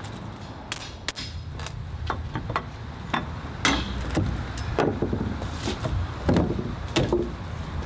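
Irregular hammer blows and knocks on wood, about a dozen over several seconds, as old rotted deck boards are beaten and pried apart.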